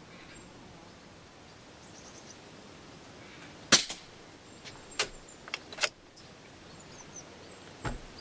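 A single moderated shot from a Rossi 8122 .22 rifle firing Norma TAC-22 subsonic ammunition: one sharp crack about four seconds in. A few lighter clicks follow.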